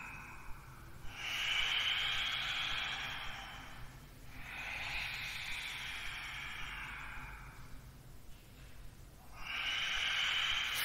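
Slow, deep yoga breathing: about three long hissing breaths, each lasting three to four seconds, one after another.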